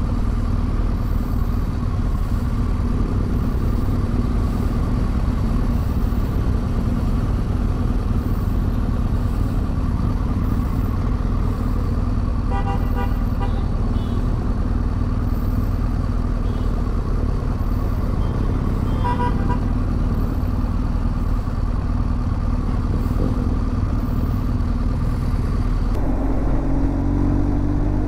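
BMW motorcycle engine running at steady road speed with wind rush on the microphone. A horn sounds briefly twice, about halfway through and again a few seconds later, and near the end the engine note rises as the bike accelerates.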